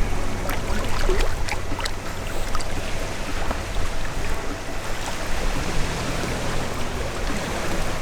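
Strong wind rumbling on the microphone over waves washing against the shore, with a few light splashes or clicks in the first two seconds.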